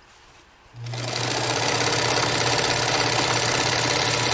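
Early-1970s Bernina Record 830 sewing machine starting up about a second in, then running steadily at speed while sewing a zigzag binding stitch along a fabric edge, with a steady low motor hum under the needle noise.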